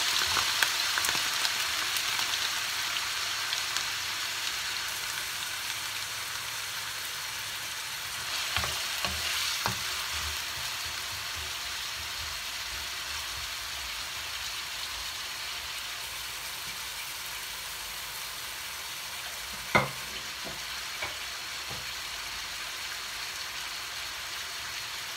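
Diced potatoes sizzling in hot oil in a non-stick frying pan, the sizzle strongest just after they go in and slowly dying down. A wooden spatula stirs them, knocking against the pan a few times, with one sharp knock about twenty seconds in.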